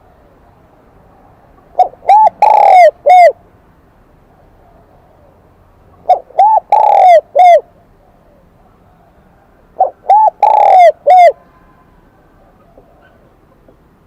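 Spotted dove cooing in a high, ringing 'kim đồng' voice: three phrases about four seconds apart, each of four notes, the third note the longest. It is the kind of call kept to draw wild doves in.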